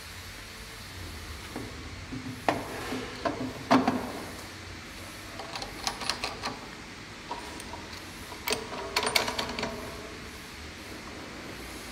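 Stainless-steel parts of a desktop food encrusting machine knocking and clinking as they are fitted together by hand, in several short bursts of clatter over a low steady background hum.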